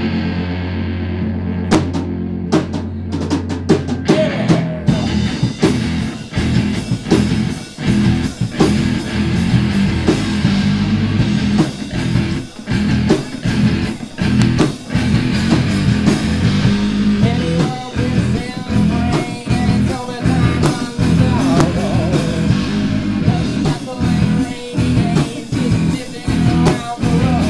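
Live rock band playing a song: a held low guitar note opens it, scattered drum hits come in about two seconds in, and the full band with drum kit and guitars kicks in about five seconds in and plays on loudly.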